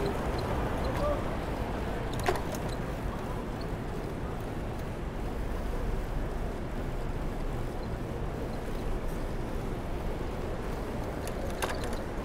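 Steady road and wind noise from riding a bicycle through city traffic, with vehicles going by. Two sharp clicks stand out, one about two seconds in and one near the end.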